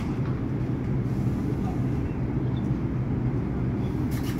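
R142-family New York subway car standing at the platform with its doors closed, its on-board equipment giving a steady low hum. There is a short knock right at the start.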